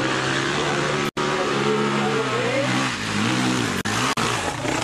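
Dirt bike engine revving hard while climbing a steep slope, its pitch rising and dipping. The sound breaks off for an instant about a second in.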